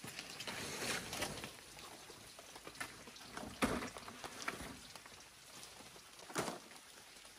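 Large banana leaves rustling and crackling as they are pushed over a roof frame of thin poles, with two sharper leaf crackles, one about halfway through and one near the end.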